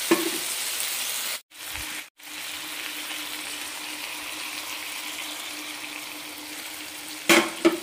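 Water poured from a bowl into a hot pan of ground coconut paste and tomato masala, running in and bubbling with a steady hiss. The sound cuts out twice briefly about a second and a half in, and there is a short louder noise near the end.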